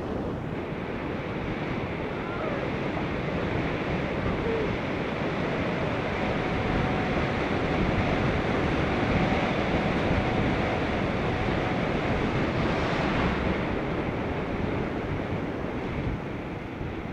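Wind rushing over the microphone of a cyclist riding at speed, building to its loudest about halfway through and easing near the end.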